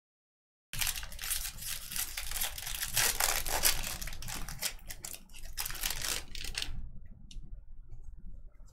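Foil wrapper of a jumbo pack of Bowman Draft baseball cards crinkling and tearing as it is ripped open, starting suddenly just under a second in. It gives way to a softer rustle of cards being handled near the end.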